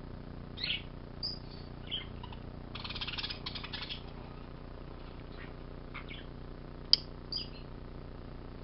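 A bird calling in short high chirps and squeaks, with a rapid rattling burst of about a second near the three-second mark. A single sharp click near the seven-second mark is the loudest sound, over a steady low hum.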